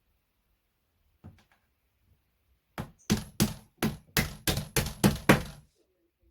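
Series of about nine quick knocks, about three a second, like hammer blows on flat-pack furniture panels, after one faint knock about a second in.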